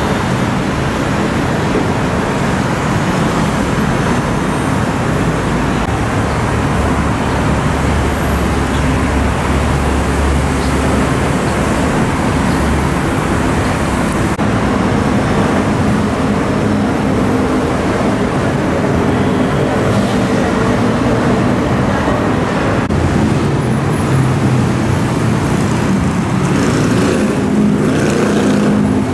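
Steady road traffic: cars and buses running past, with a deeper engine drone for several seconds before the midpoint.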